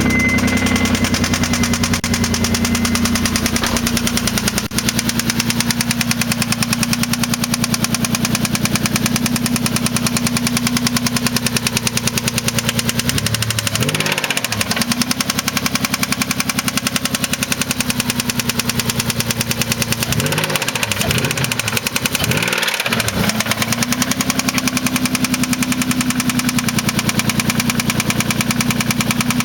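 1993 Mitsubishi 3000GT SL's 3.0-litre V6 idling with a rapid, steady knock, suspected to be a spun rod bearing. It is revved briefly once a little before halfway and twice more a few seconds later, then settles back to idle.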